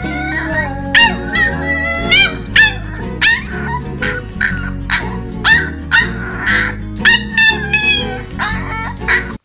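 Corgi puppy yapping over and over in short, high yips, about one or two a second, over background music.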